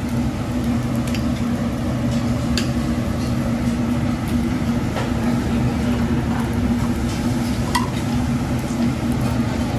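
Food sizzling on a hibachi steel griddle under a steady low hum from the exhaust hood overhead, with a few sharp clicks of a metal spatula on the griddle.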